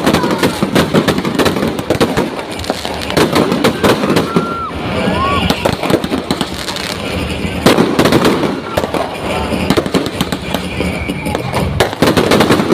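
Fireworks going off in rapid succession, a dense run of crackling and banging, with heavier volleys about two-thirds of the way in and near the end. People's voices are heard among the bangs.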